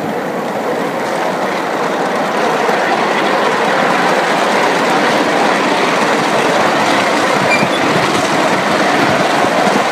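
Coal-fired live-steam miniature Atlantic (4-4-2) locomotive running on its track, heard from the driver's seat, with steam exhaust and wheels on the rails. It grows louder over the first couple of seconds as the engine gets under way, then runs on steadily.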